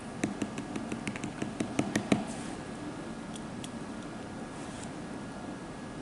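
A diamond painting applicator pen tapping resin drills down onto the adhesive canvas in quick succession, about seven light clicks a second for two seconds, then a couple of faint ticks.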